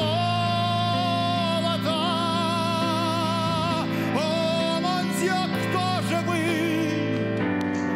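A man sings long, high held notes with vibrato over sustained keyboard chords, then moves into shorter wavering phrases.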